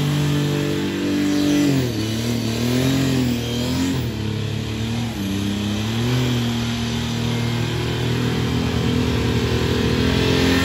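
Twin-turbo diesel engine in a golf cart running hard. The revs drop about two seconds in, rise and fall a few times, hold lower, and climb again near the end.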